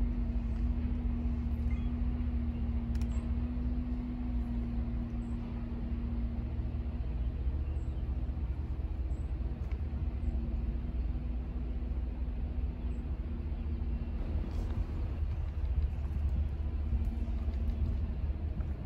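Distant diesel locomotive engines running, heard as a steady low rumble with a faint steady hum that fades about a third of the way in and comes back.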